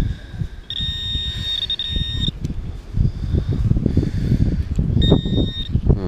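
Orange handheld metal-detecting pinpointer sounding a steady high buzzing tone for about a second and a half, then again briefly near the end, as its tip is worked into the sand close to a metal target. Strong wind buffets the microphone throughout.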